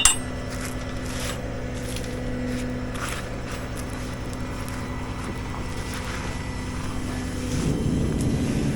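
A truck engine running steadily, growing louder about seven and a half seconds in.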